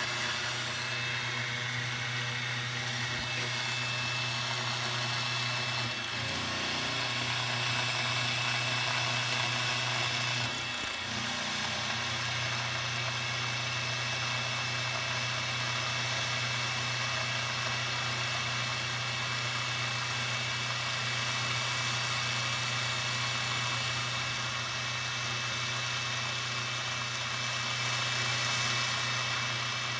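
Grizzly G0759 milling machine running an automatic cut, its end mill milling a pocket in a metal plate: a steady spindle-motor hum with a hiss of cutting over it. Two short knocks come about six and eleven seconds in.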